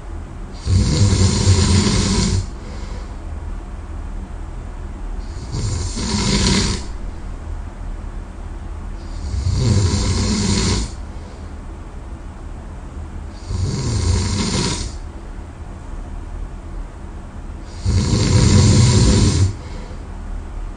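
A sleeping person snoring loudly: five snores about four seconds apart, each lasting a second or so, with quieter breathing between them.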